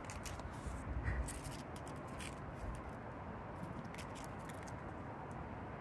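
Dry leaf scraping and crackling on concrete as a cat bats and paws at it: scattered short faint ticks and scratches over a low steady rumble.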